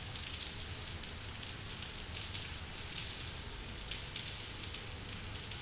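Steady rainfall on a surface: an even hiss of many drops, with brief louder patches of heavier drops now and then.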